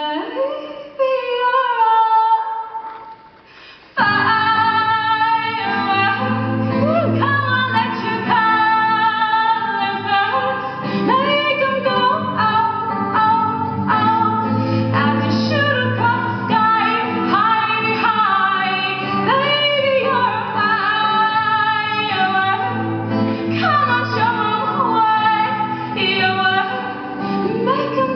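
A woman sings solo with an acoustic guitar. For the first few seconds the voice is almost alone. About four seconds in, steady guitar strumming comes back in under the singing.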